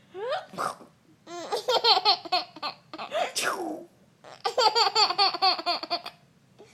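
Baby giggling: two runs of quick, high-pitched laughs, each led in by a rising squeal.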